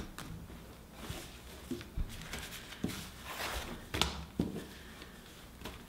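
Paper cards and cloth pouches being handled on a tabletop: soft rustling with a few light taps and knocks, and a longer rustle just past the middle.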